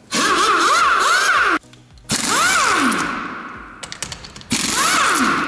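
Pneumatic impact wrench loosening wheel bolts, in three bursts of hammering with a whine that swings in pitch. The first burst cuts off suddenly about a second and a half in, the second starts about two seconds in and fades away, and the third starts about four and a half seconds in.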